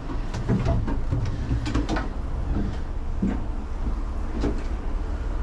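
Gondola cabin moving through the lift station, heard from inside the cabin: a steady low mechanical rumble with a series of clunks and rattles from the cabin and its grip running over the station machinery.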